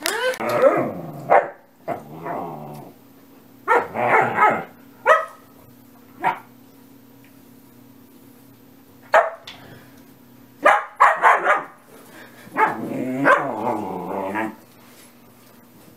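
German Shepherd puppy barking and growling in a series of bouts with pauses between: some single sharp barks, others drawn-out growling barks lasting a second or two.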